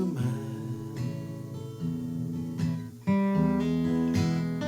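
Acoustic guitar strumming chords, with a fresh, louder strum about three seconds in.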